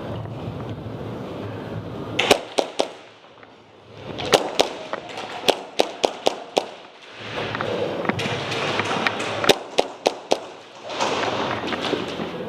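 Airsoft guns firing single shots in irregular clusters: three about two seconds in, a run of about seven shots from four to seven seconds in, and several more from about eight to ten and a half seconds in.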